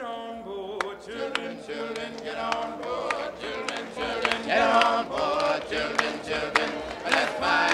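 Voices singing together in chorus, with a sharp clap-like beat about every two-thirds of a second.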